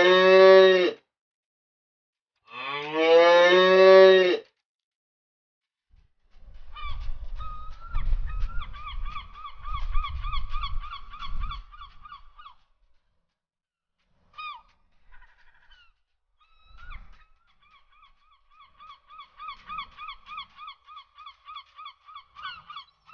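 A sequence of farm-animal calls. Two long, low calls come in the first four seconds. From about six seconds in there is a run of quick, repeated, higher calls, about three a second, which return more faintly after a short gap.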